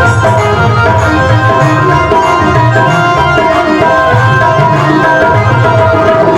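Instrumental interlude of a Hindi devotional bhajan: tabla drumming in a steady rhythm under long held melodic notes.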